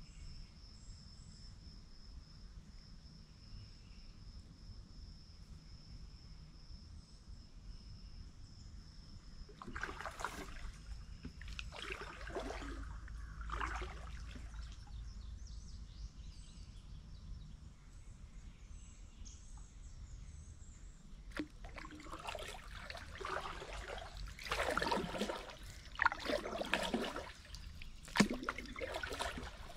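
Kayak paddle strokes swishing and dripping in the water, a few around the middle and a quicker run of them in the last third. A steady, high insect trill sounds through the first third.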